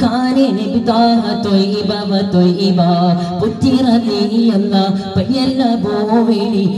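A young man singing a Mappila paattu (a padappattu, or battle song) solo into a microphone, his voice moving through many winding turns in pitch.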